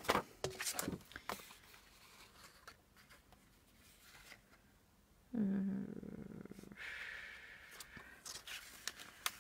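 Light handling of card at a paper cutting machine: scattered soft taps and clicks as the sheet is positioned and measured. About five seconds in there is a short low hum from the woman's voice, followed by a faint sliding rustle.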